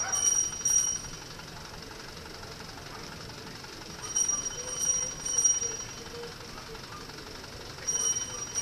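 A small metal bell rung in sets of three quick strikes, about half a second apart, with a new set every four seconds or so. Each strike rings on at a high, clear pitch over a steady background hum of street noise.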